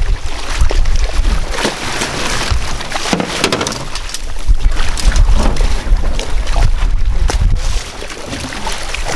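Water splashing and churning as a big skate thrashes at the surface beside the boat, in repeated short splashes over a steady low rumble.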